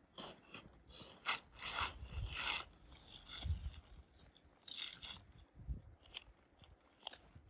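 Crunching steps in snow and the rustle and scrape of nylon tent fabric and poles as a small dome tent is pulled up over its poles, in irregular bursts with a few sharp clicks.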